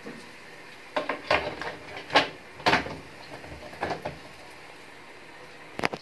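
Hard plastic knocks and clunks as the Samsung washing machine's top panel is lowered and seated back over the water inlet valve: a run of sharp knocks, the loudest about two seconds in, and one more near the end.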